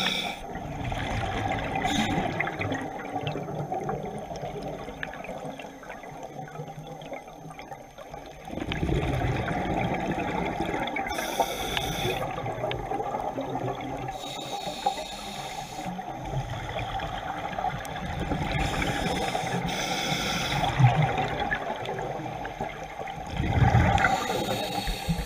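Scuba divers breathing through their regulators, heard underwater: a steady watery rush with bursts of exhaust bubbles every few seconds in the second half, the loudest near the end.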